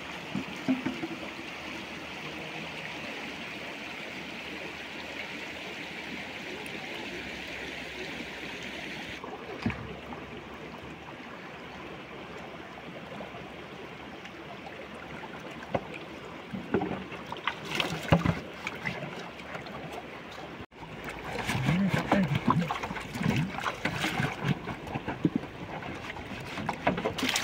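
Steady rush of a shallow stream over stones. From about two-thirds of the way in it gives way to louder, irregular gurgling and glugging as water runs into a plastic jerrycan held under a spring, with light knocks of the plastic can.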